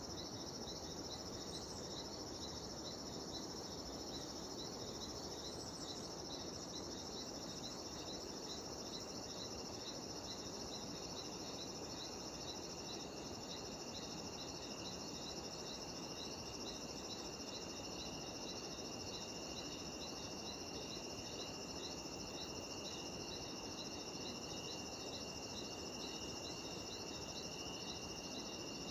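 Cicadas and other insects calling in chorus: a steady high drone, a rhythmic chirp pulsing a few times a second, and a second steady tone that joins about eleven seconds in.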